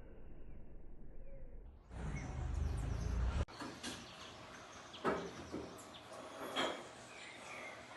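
Birds chirping and calling, with louder calls about five and six and a half seconds in. Before that, about two seconds in, the sound changes abruptly and a low rumble starts, which stops suddenly about three and a half seconds in.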